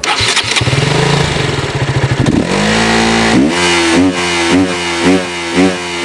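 KTM single-cylinder motorcycle engine running with a cap removed to change its exhaust note. It starts loud and uneven, revs up about two and a half seconds in, then is blipped repeatedly, about twice a second.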